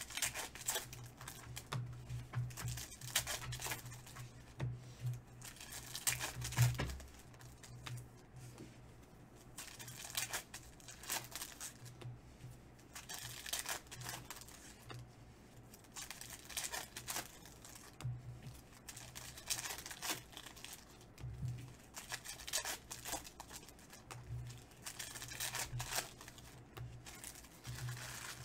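Foil trading-card pack wrappers being torn open and crinkled by hand, in repeated irregular bursts of crackling.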